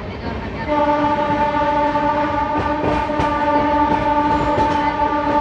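A train horn sounds one long, steady blast starting about a second in, over the rumble and rail clatter of a moving train heard from inside a coach.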